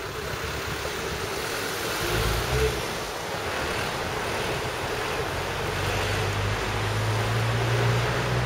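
Steady city traffic noise, with a low engine hum that comes in about two seconds in and grows a little louder toward the end.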